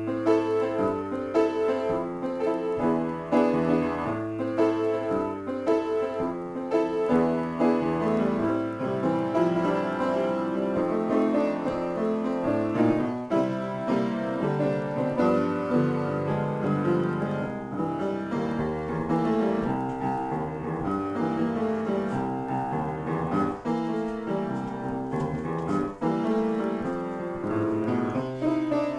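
Upright piano played by hand in a free improvisation: a continuous, dense stream of notes and chords with no pause.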